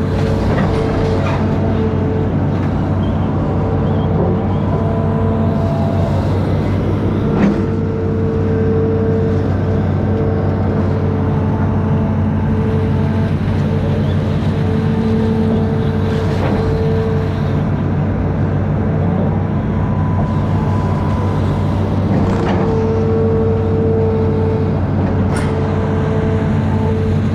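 Amphibious excavator's diesel engine running steadily under work, with a steady tone above the engine hum that strengthens and fades several times. A single sharp knock comes about seven seconds in.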